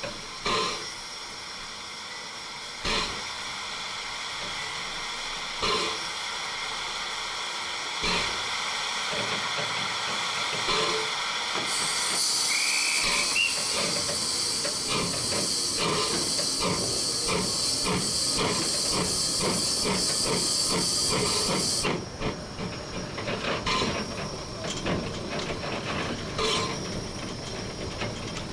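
Steam locomotive hissing, with a sharp knock every two to three seconds. About twelve seconds in a loud steam hiss starts, with a short rising whistle note near its start and quickening beats beneath it. The hiss cuts off suddenly about ten seconds later, leaving irregular knocking and clatter.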